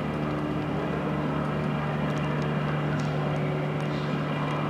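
Airbus Helicopters EC-145 twin-turbine helicopter hovering low, its turbines and rotors running steadily with a constant tone over the noise of the blades.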